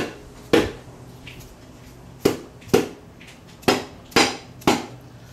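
Orange soft-faced mallet striking a steel transmission pump, seven dull knocks in groups of two and three, tapping it down to seat it in the 32RH transmission's aluminum case.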